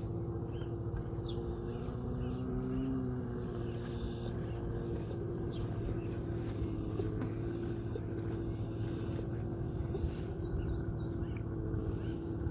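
Stand-up jet ski engine running across the water at a distance, a steady hum.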